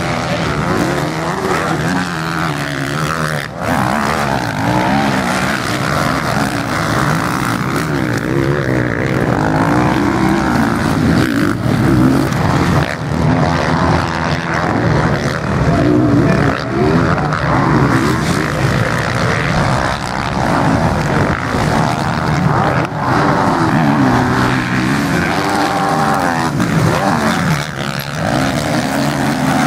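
Several motocross bikes' engines at race pace, revving up and falling back again and again as the throttle opens and closes, often more than one engine at once.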